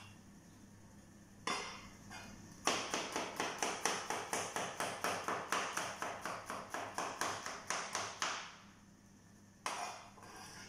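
Kitchen knife chopping cucumber on a plastic cutting board: a steady run of quick knife strikes, about four or five a second, beginning near three seconds in and stopping about two seconds before the end, with a couple of single cuts before the run and one after it.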